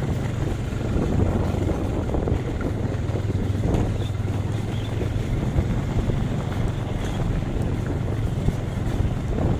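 A vehicle running steadily on the move, a low rumble with wind buffeting the microphone.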